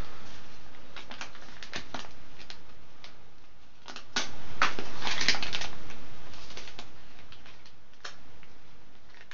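Paper and card being handled: a run of crisp rustles and crinkles with sharp clicks, busiest about four to five and a half seconds in.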